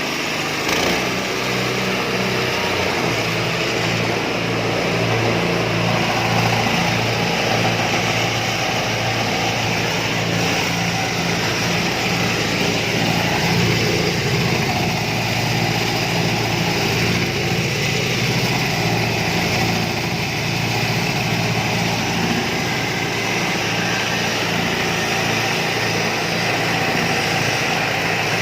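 Rice-husk grinding machine running steadily: an engine hum with a dense rushing noise over it, holding level throughout.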